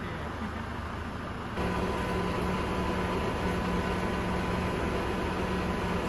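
Steady hum of idling vehicle engines. About a second and a half in it switches abruptly to a louder hum with a steady high-pitched tone.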